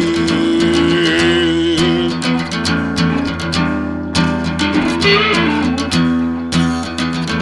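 Instrumental break of a band song with guitar to the fore, no singing; a long held note in the first two seconds, then busier picked playing over the backing.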